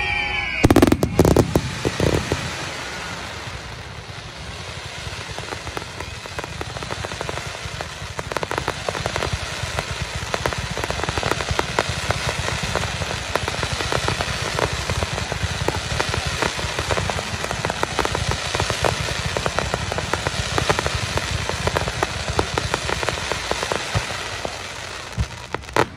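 Fireworks fountains spraying sparks with a dense, rapid crackle. There are one or two sharp bangs about half a second in. The crackle drops back a few seconds in, then builds up steadily again.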